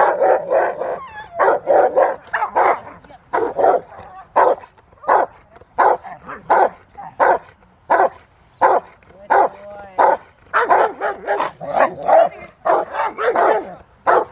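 Rottweiler barking steadily and repeatedly at a protection-training helper in a bite sleeve, a run of sharp, loud barks about two a second, as in a hold-and-bark exercise.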